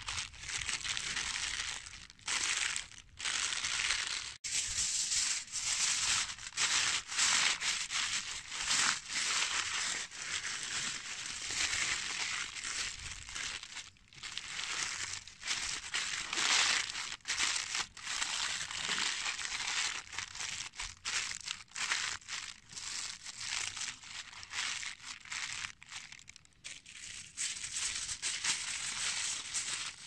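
Baking paper and then aluminium foil crinkling and rustling in irregular bursts as hands fold them tightly around a fish to make a cooking parcel.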